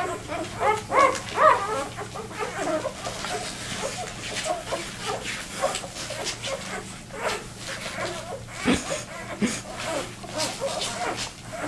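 Two-day-old vizsla puppies squeaking and whimpering as they crowd in to nurse. The short, high cries rise and fall, come thickly near the start, then turn sparser and scattered.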